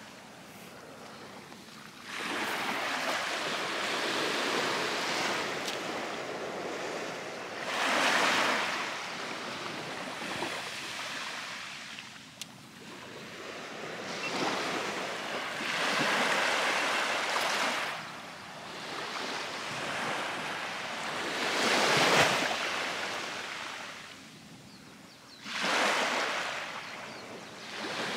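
Waves breaking on a beach, the wash swelling and fading every few seconds, with some wind on the microphone.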